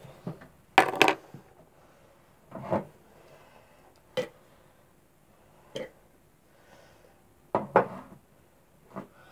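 Kitchenware being handled off to one side: a string of separate knocks and clatters of dishes, utensils and containers, as in rummaging through the kitchen for something. The loudest clatter comes about a second in, with a small cluster near the end.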